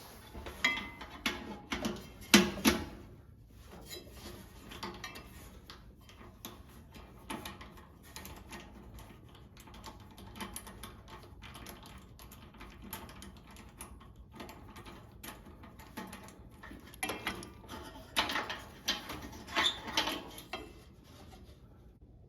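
Metal clinks, clicks and knocks of hand tools and parts being handled while the igniter is taken off a kerosene torpedo heater. A cluster of clanks comes at the start and another near the end, with light ticking between.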